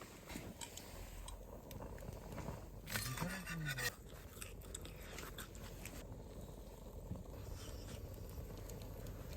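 Quiet mealtime sounds: chewing with small clicks and scrapes of utensils on dishes. About three seconds in comes a brief louder noise with a short pitch that rises and falls.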